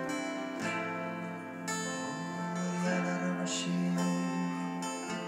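Live worship band music: acoustic guitars strummed over held keyboard chords that change every second or so.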